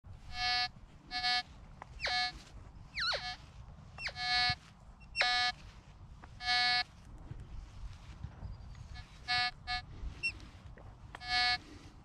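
Nexus Standard MP V3 metal detector in VCO audio mode sounding about ten short, buzzy beeps, roughly one per coil sweep, with a pause in the middle. A few quick pitch swoops are mixed in. These are its responses to moderate iron in the ground under the 10-inch 18 kHz coil.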